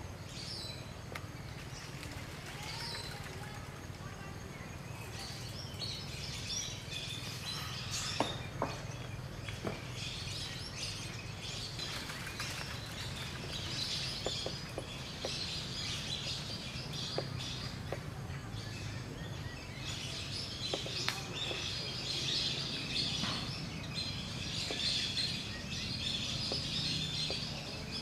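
Many small birds chirping and twittering, busier after the first few seconds, over a low steady background rumble with a few faint clicks.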